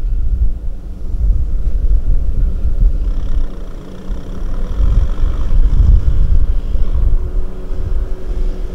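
A farm machine's engine running steadily under heavy wind rumble on the microphone. A faint steady whine joins near the end.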